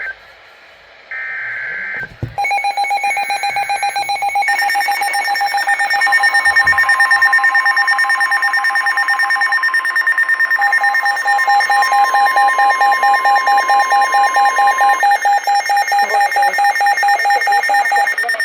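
NOAA Weather Radio Emergency Alert System header: short bursts of warbling data tones, then the long steady weather-radio alert tone sounding for about nine seconds. Weather radio receivers beep rapidly over it the whole time. Together they herald a flash flood warning.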